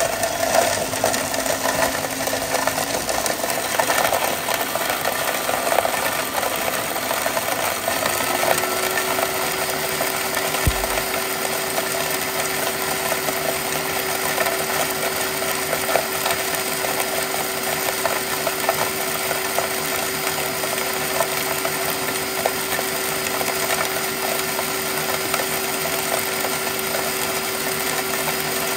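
Countertop blender running on purée, grinding chili peppers. The motor note rises about eight seconds in, then holds steady.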